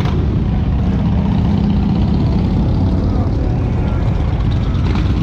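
Motorcycle engines running in a steady low rumble, swelling slightly about a second in, with crowd voices faintly underneath.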